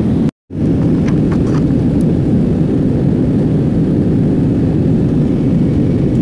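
Steady low rumbling cabin noise of a jet airliner climbing after takeoff, engine and airflow noise heard inside the cabin by a window seat. Less than a second in, the sound drops out completely for a moment.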